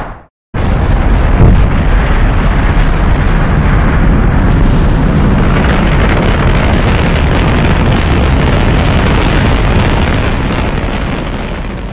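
Rocket engine firing: a loud, steady, rumbling rush of noise that cuts in suddenly about half a second in, right after a brief silence, and fades near the end.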